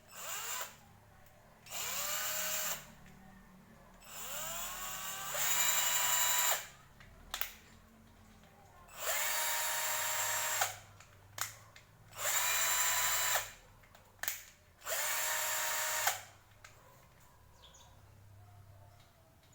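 Ingco 12-volt cordless drill run with no load in short trigger pulls, about six of them with a few quick blips between. Each pull is a whine that rises in pitch as the motor spins up, holds steady for one to two seconds and stops. In one pull the whine steps up to a higher speed partway through.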